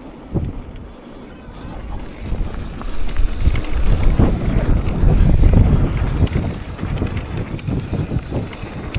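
Wind rushing over the microphone and a mountain bike rattling over rough trail at speed. It builds about two seconds in and is loudest around the middle, with many small clicks and knocks on top.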